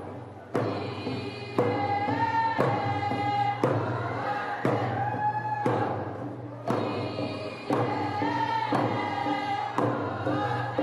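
Athabascan group song: many voices singing together to hand-held frame drums struck in a steady beat about once a second.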